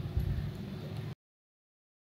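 Dull, low thumps and handling noise that cut off abruptly just over a second in, leaving dead silence.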